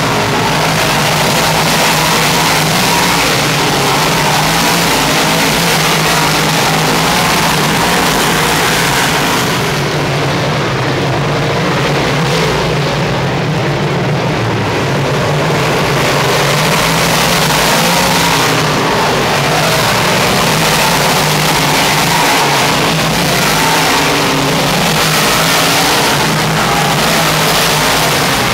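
A field of big-block dirt Modified race cars racing, their big-block V8 engines running loud and unbroken as the pack circles the track. The sound dulls for several seconds about a third of the way in, then comes back full.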